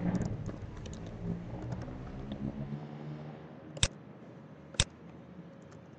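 Light keystrokes on a computer keyboard, followed by two sharper mouse clicks about a second apart.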